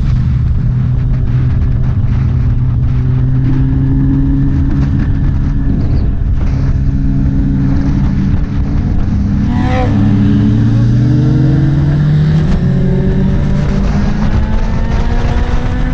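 Motorcycle engine running under way, with low wind rumble. The engine note climbs slowly from about ten seconds in and drops back about two seconds later. A short rising-and-falling sweep comes just before the climb.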